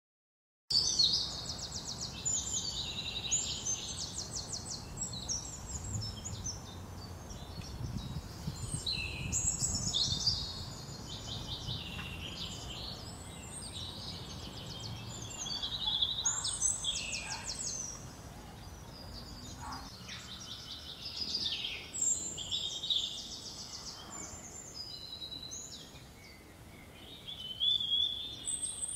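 Several songbirds singing at once, overlapping whistled phrases and fast trills, over a faint low background rumble. The song starts abruptly a moment in.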